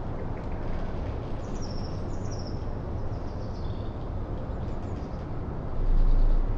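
Outdoor ambience of steady wind rush with small birds chirping in short high notes now and then. Near the end a gust buffets the microphone with a brief low rumble.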